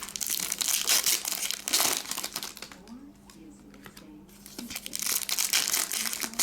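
Foil trading-card pack wrappers crinkling and tearing as packs are ripped open, in two spells: the first lasts about two seconds, and the second begins about five seconds in.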